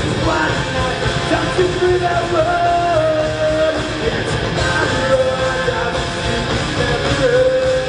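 Rock band playing live: electric guitars with sustained, sliding notes over bass and drums.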